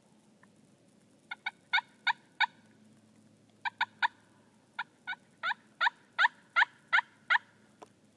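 Turkey yelping: about sixteen loud, short notes, each dropping in pitch, in three runs (five, then three, then a longer run of eight), roughly three notes a second.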